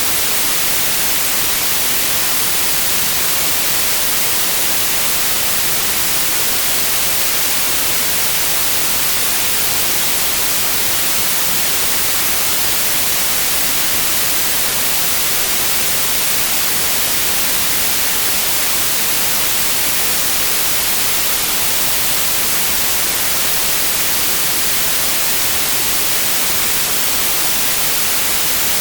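Steady white noise: an even, unchanging hiss.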